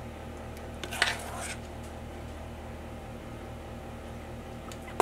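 A metal spoon clinking and scraping against a stainless steel mixing bowl about a second in, while scooping thick cheesecake mixture, with a few faint ticks later. A steady low hum runs underneath.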